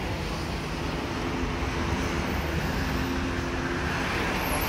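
Street traffic: the steady hum of a car engine over road noise.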